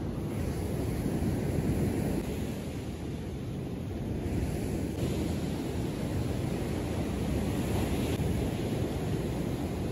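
Wind buffeting the microphone over the steady low rush of ocean surf on a beach.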